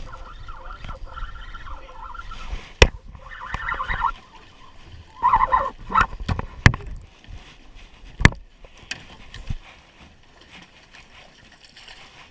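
Sharp knocks and bangs in an aluminium jon boat: four loud single strikes spread over several seconds, with short scuffling noises between them. It goes quieter near the end.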